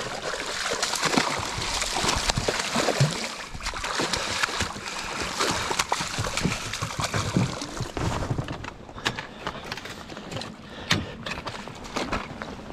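A hooked musky thrashing at the surface beside the boat and being netted: water sloshing with many quick splashes. It is busiest in the first half and thins out later into scattered sharper splashes.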